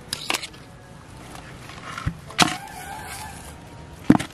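Several sharp knocks and rustles as fish are handled in the grass and put into a plastic bucket. The loudest knocks come about two and a half seconds in, with a brief ring after them, and again near the end.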